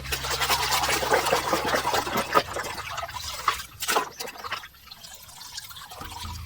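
Water pouring and splashing, heaviest for the first three seconds and then thinning to a fainter trickle with a few splashes. A low steady hum lies under it for about the first two seconds.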